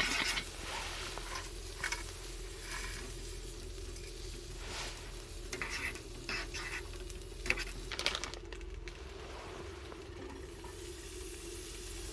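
Steady sizzling over a wood fire, with scattered crackles and clicks and a sharper knock about seven and a half seconds in.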